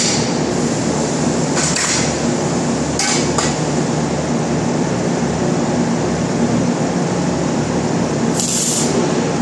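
Welding-shop floor noise: a steady drone of machinery with a constant hum, broken by a few short hissing bursts, the last near the end.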